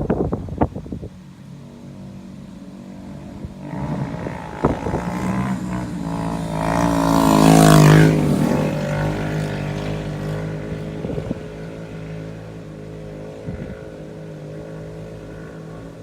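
A motor vehicle's engine passing by, growing louder to a peak about halfway through, dropping in pitch as it passes, then fading away.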